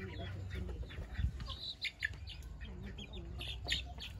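Backyard chickens clucking and giving short high chirps, with a low thump about a second in.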